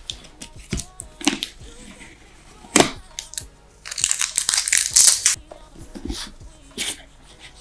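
Plastic packaging seal on a cardboard headset box crinkling and tearing as fingers pick it off, with scattered taps and scratches of fingernails on the box. There is a sharp knock a little before the tearing.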